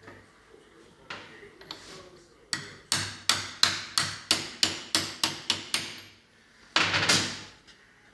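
Hammer blows during a hydraulic steering box repair: about a dozen sharp strikes in a steady rhythm of roughly three a second, starting a couple of seconds in. Near the end comes a single longer, louder noise lasting under a second.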